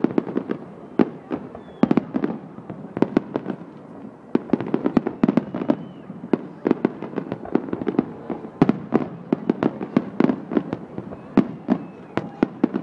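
Fireworks display: aerial shells bursting one after another in a dense, irregular run of sharp bangs, several a second.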